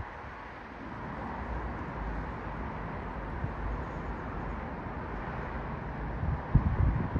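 Four-engined British Airways Airbus A380 airliner, with Rolls-Royce Trent 900 engines, passing high overhead: steady distant jet engine noise. Wind buffets the microphone about six and a half seconds in.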